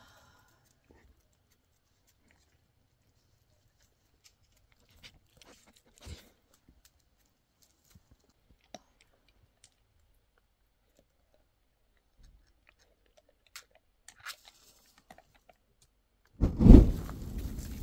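A few faint scattered clicks and crunches, then near the end a sudden loud whoosh as a pile of dry brushwood bursts into flame. This gives way to the steady noise of the blaze burning.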